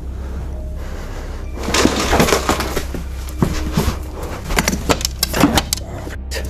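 A rapid, irregular series of sharp knocks, bangs and cracking noises, like wood and debris being struck, starting about two seconds in over a steady low hum.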